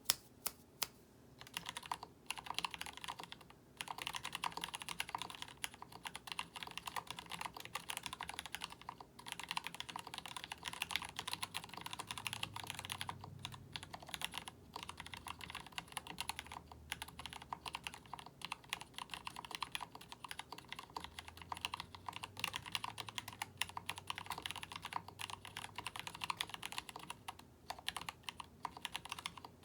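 Typing on a Boardsource Mark 65 mechanical keyboard with stock-lubed Gateron Cap Milky Yellow linear switches, GMK Denim ABS keycaps, an FR4 plate and a polycarbonate case, sitting on a 2 mm deskmat. Fast, continuous keystrokes broken by a few short pauses.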